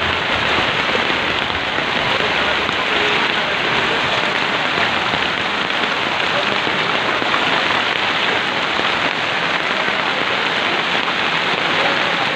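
Heavy monsoon rain and muddy floodwater rushing along a road, heard together as a steady, even hiss.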